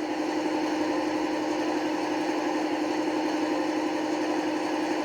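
A model locomotive's sound decoder plays a Class 55 Deltic diesel engine idling through its small onboard speaker: a steady drone with a strong constant hum.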